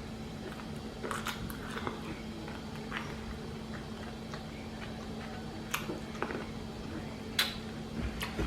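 Close-up chewing and wet mouth noises of someone eating chicken salad, with scattered small clicks, over a steady low hum.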